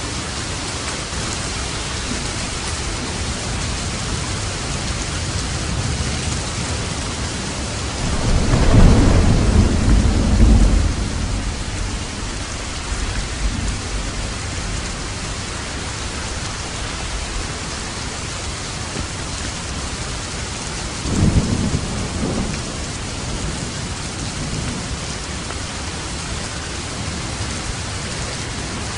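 Steady rain falling, with a roll of thunder about eight seconds in and a second, shorter and quieter rumble about twenty-one seconds in.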